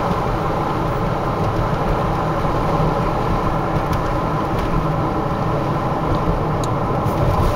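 Steady road and engine noise inside a moving car's cabin on a winding paved road.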